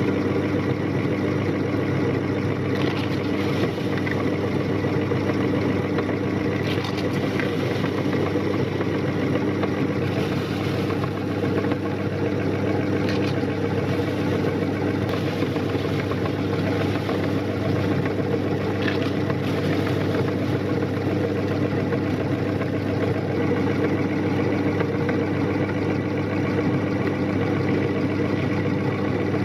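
Electric meat grinder running steadily under load, its motor giving a constant hum as it grinds Parle-G biscuits into powder. A few faint crunches come through now and then.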